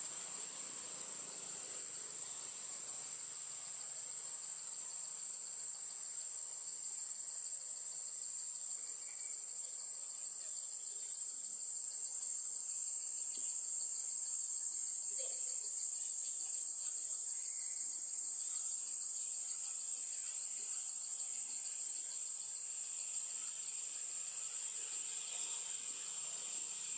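Steady, high-pitched insect chorus, growing slightly louder about halfway through.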